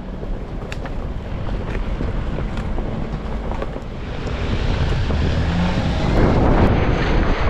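Off-road vehicle driving on a trail, with a rushing noise of wind on the microphone over a low rumble that grows louder about two-thirds of the way through.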